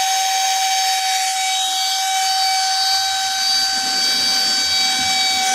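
Small cordless handheld car vacuum running, its motor giving a steady high-pitched whine over a rush of air.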